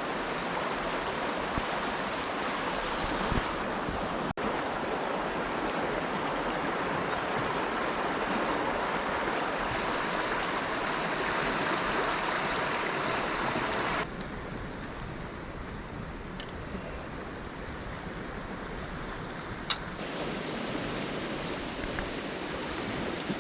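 Rushing water of a mountain stream, a steady noise that shifts suddenly a few times and drops somewhat quieter about fourteen seconds in.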